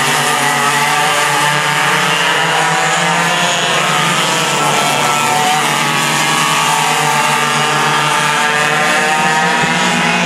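Several racing go-kart engines running at high revs together, their pitches overlapping and wavering up and down as the karts race through the turns.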